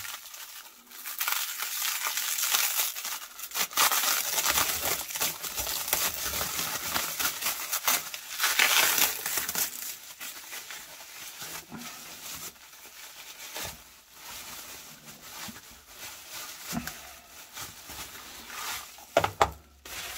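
Plastic bubble wrap and cling film crinkling and rustling as it is pulled and unwound by hand, loudest in the first half and quieter after. A couple of sharp knocks near the end.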